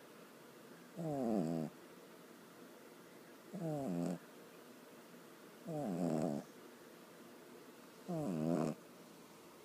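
A pug snoring in her sleep: four pitched, buzzing snores, each about half a second long, coming about every two and a half seconds.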